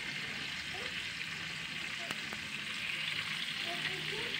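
Small tamban (sardinella) fish frying in hot oil in a wok over a wood fire: a steady sizzle, with one sharp pop about two seconds in.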